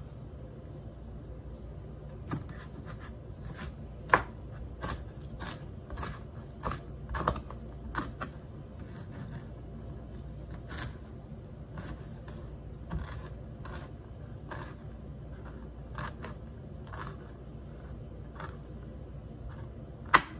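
Chef's knife chopping pineapple peel and core on a plastic cutting board: irregular knocks of the blade on the board, about two a second, a few of them louder, over a low steady hum.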